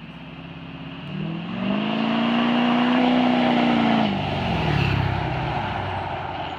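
Duramax turbodiesel V8 pickup truck accelerating hard past. The engine note climbs in pitch and loudness as it approaches, peaks, then drops and fades as it drives off.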